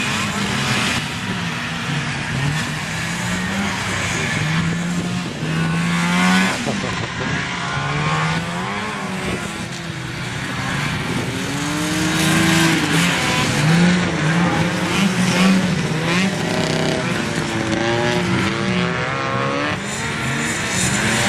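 Several vintage snowmobiles' two-stroke engines racing, their pitches rising and falling as they rev and ease off together.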